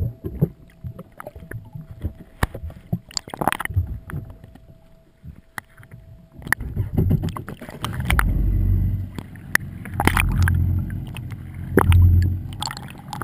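Muffled water sound picked up by a camera held underwater in its waterproof housing: scattered clicks and knocks against the housing, then from about eight seconds in a low rushing rumble of water surging past it.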